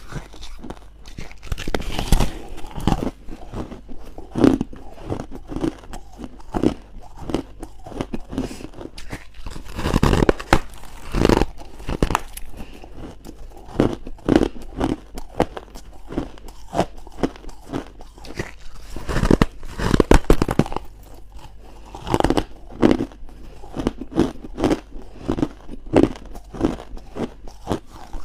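Close-miked biting into crunchy freezer-frost ice: a run of irregular sharp crunches, with louder bursts of several bites bunched together a few times.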